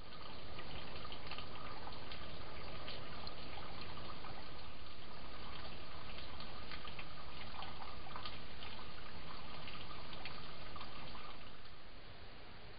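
Steady trickle and splash of running stream water, with scattered small crackles and a thin steady high tone. It drops in level about a second before the end, at a change of clip.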